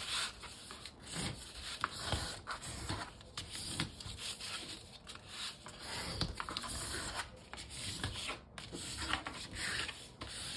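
Folds of a paper plate being creased by rubbing a wooden creasing stick and fingers along them, in repeated irregular scratchy strokes.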